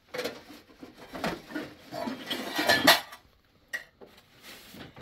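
Dishes and pots clattering as they are handled: irregular knocks over the first three seconds, loudest near the third second, then a couple of sharp single clicks.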